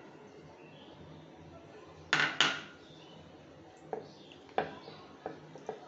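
Ceramic bowl and spoon clinking and knocking against dishware: two sharp knocks about two seconds in, then several lighter taps.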